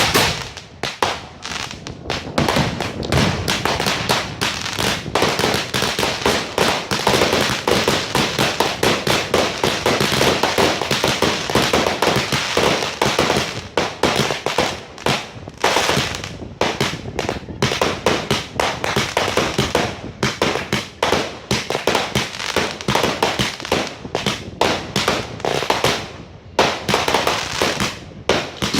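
Fireworks display with a dense, continuous barrage of bangs and crackling, a few brief lulls between volleys.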